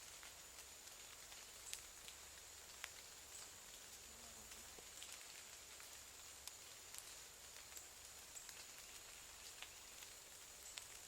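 Near silence outdoors: faint, scattered ticks of raindrops over a steady high hiss.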